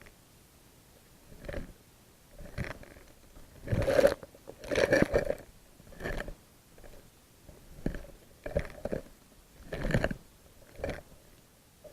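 Muffled, irregular crunching knocks and scrapes picked up underwater by a submerged camera in its housing, coming about once a second, with the loudest cluster near the middle.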